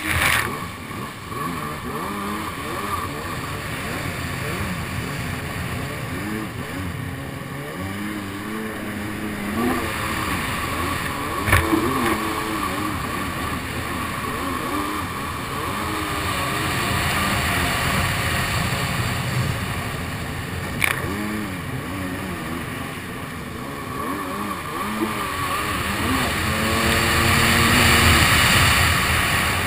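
Kawasaki SXR 800 stand-up jet ski's two-stroke twin engine, fitted with a TBM dry pipe and new carburettors, running under way and revving up and down, with water spray and rushing noise mixed in. There are two sharp knocks about 11 and 21 seconds in, and the engine reaches its loudest, revving higher, near the end.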